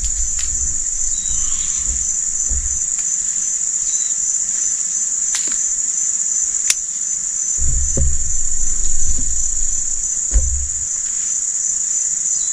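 Steady, high-pitched insect chorus of trilling crickets running on without a break. Low rumbles on the microphone come in during the first few seconds and again about eight seconds in, and there are a couple of sharp clicks in the middle.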